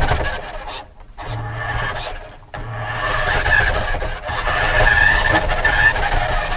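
Radio-controlled car's motor and drivetrain running with a high whine over rough rolling noise, picked up by a camera mounted on the car. The sound drops out briefly twice, about a second in and again around two and a half seconds.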